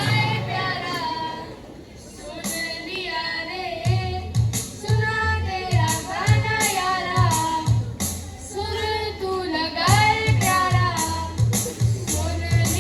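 A young voice singing a Hindi song over a backing track; a steady low beat comes in about four seconds in.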